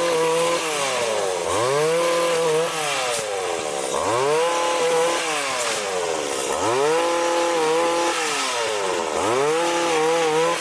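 Small engine of a motorized oil palm harvester running at high speed, its pitch dipping sharply and climbing back four times, about every two and a half seconds.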